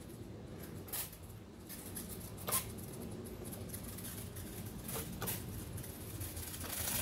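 A few faint, short clicks and scratches from handling a hand-held RC transmitter and foam model plane while the elevator stick is worked, over a low steady background.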